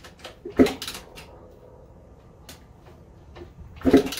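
Kawasaki KX100 two-stroke dirt bike being kick-started: two kicks, the first about half a second in and the second near the end, each a short clunk as the engine turns over without catching.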